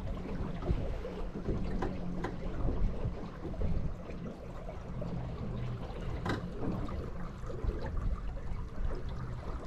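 Steady wind rumble on the microphone with water lapping around a small aluminium boat, and a few faint clicks.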